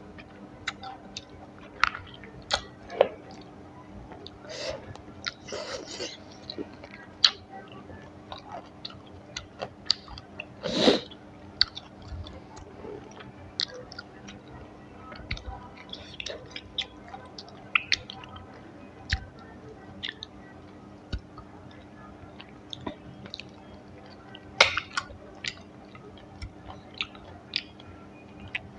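Close-miked chewing and eating: irregular wet mouth smacks, squishes and small clicks of someone eating rice and curry, with one louder burst about eleven seconds in. A faint steady hum lies underneath.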